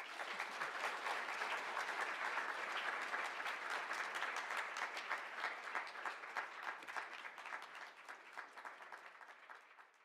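Audience applauding. The clapping starts all at once, holds steady, then dies down over the last few seconds.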